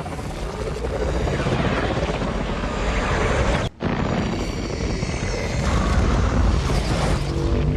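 Godzilla film sound effect: a loud, dense rumbling, rushing noise with no clear pitch. It breaks off for a split second a little past halfway, then carries on.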